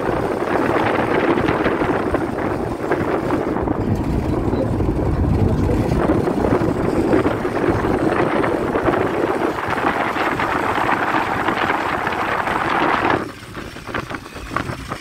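Car driving at highway speed: a steady rush of wind and road noise on the phone microphone, which drops off sharply near the end.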